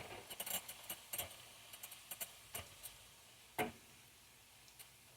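Tortilla strips frying in hot oil: irregular crackling pops, dense at first and thinning out, with one louder knock about three and a half seconds in.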